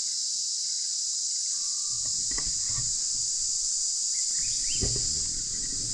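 Steady chorus of insects shrilling high up, with no break. From about two seconds in, low rustling and a couple of soft knocks come and go beneath it.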